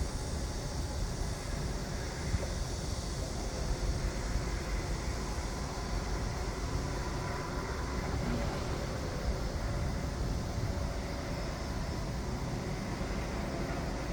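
Steady, continuous low rumble of construction site machinery, with an even hiss above it and no distinct impacts.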